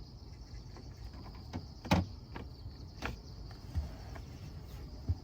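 A few sharp knocks and thumps from handling the car bed platform's parts, the loudest about two seconds in, with lighter ones near three, four and five seconds.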